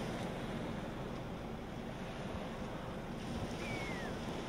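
Small waves washing onto a sandy Great Lakes beach, a steady wash of surf with some wind noise on the microphone. A short falling whistle sounds briefly near the end.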